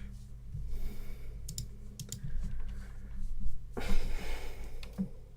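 Scattered computer keyboard and mouse clicks over a steady low hum, with a short hiss about four seconds in.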